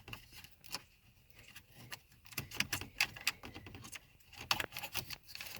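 Plastic center console trim pieces and their wiring being handled: scattered light clicks, taps and rattles, busier from about halfway through.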